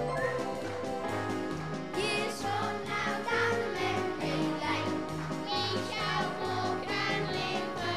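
A group of children singing along to a musical backing with a steady bass beat; the voices come in strongly about two seconds in.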